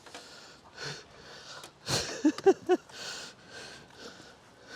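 A person breathing hard close to the microphone: quick, hissy breaths in and out, one after another. Three short voiced sounds come in quick succession a little after two seconds in and are the loudest part.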